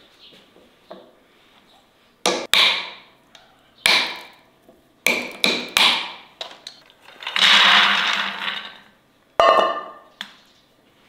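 A series of sharp knocks of hard objects, about seven, each ringing briefly. A longer rattling rush comes a little past the middle.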